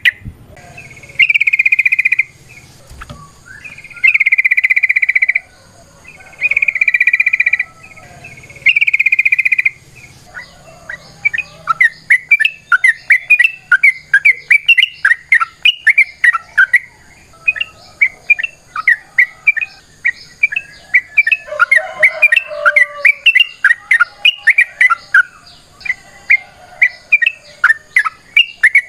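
Yellow-vented bulbul song: four long, even, loud notes in the first nine seconds, then a fast run of short chirps at about three a second.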